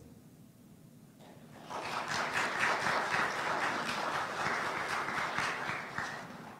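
Congregation applauding, starting about two seconds in and dying away near the end.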